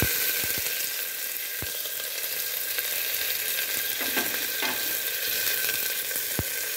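Chopped onions frying in hot oil in an aluminium pressure cooker: a steady sizzle, with a few sharp taps of the spoon against the pot as the onions are stirred.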